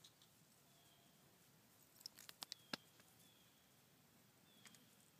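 Near silence, with a few faint clicks a little after two seconds in.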